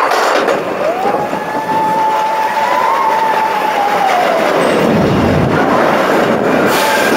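Expedition Everest roller coaster train running along its track: a steady loud rush and rumble, with a whine that comes in about a second in, holds, then falls in pitch.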